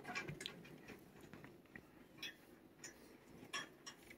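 Faint, irregular scratchy clicks of a long-handled back scratcher's plastic rake head being rubbed through a cat's fur.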